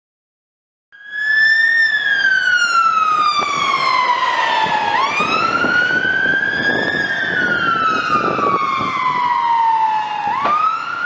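Emergency vehicle siren on a slow wail, starting about a second in: the pitch sweeps up over about two seconds, then falls away over about three, and climbs again twice. A rumble runs underneath.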